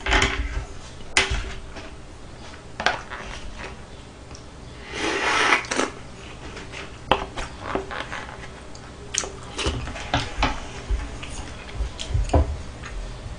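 Chopsticks and black plastic takeout lunchbox trays being handled during a meal: scattered clicks, taps and clatters, with a longer rustling scrape of plastic about five seconds in.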